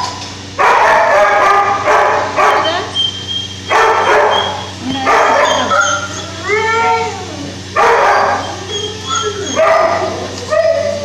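Dogs in shelter kennels barking repeatedly, loud barks every second or two, with rising-and-falling yelps and whines between them.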